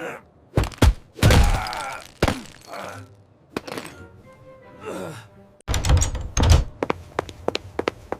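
Sound effects of an animated short: heavy thunks and thuds over background music, with a loud cluster of thuds about six seconds in, followed by a run of quick, regular tapping like footsteps.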